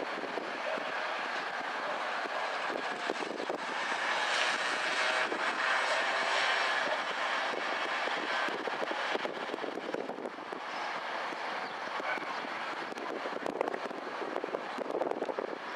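Street traffic noise, swelling as a vehicle passes about four to nine seconds in, then easing.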